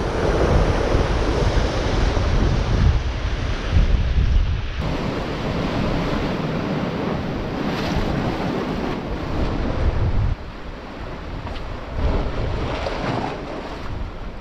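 Sea surf washing and breaking over reef rocks, with gusty wind buffeting the microphone; the noise eases a little about ten seconds in.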